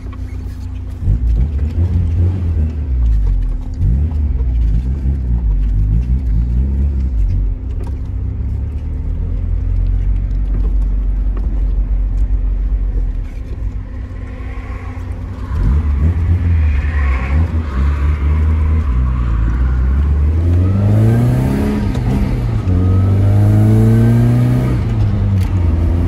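Tofaş Doğan SLX's four-cylinder engine heard from inside the cabin while driving, fitted with a Varex aftermarket exhaust. It runs steadily, eases off briefly about halfway, then its pitch rises twice under acceleration near the end.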